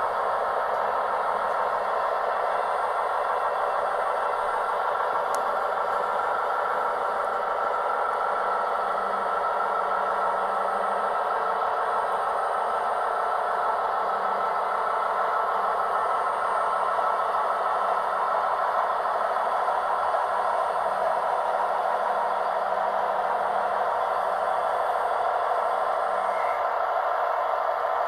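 Gauge 1 model goods train running along the track: a steady, fast clatter of metal wheels on the rails, with the rattle of the wagons.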